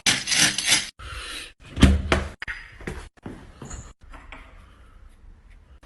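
A few sharp knocks and thuds, the loudest a heavy low thud about two seconds in, with abrupt cuts between them.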